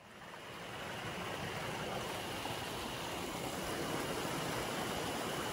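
Mountain stream rushing steadily over rocks. It fades in over the first second.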